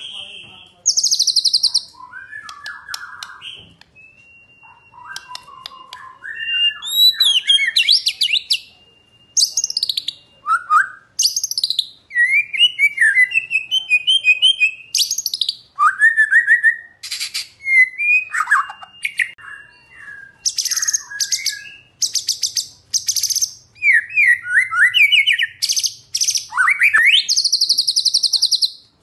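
White-rumped shama (murai batu) singing a long, varied song of rising and falling whistled phrases, a few long held whistles, and fast buzzy trills and rattles. The bursts come thick and loud through the last third.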